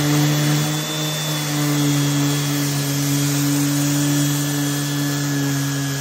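DeWalt 5-inch random orbit sander running at steady speed with an 80-grit disc, sanding down a thick patch of dried drywall mud: a steady motor hum over a sanding hiss.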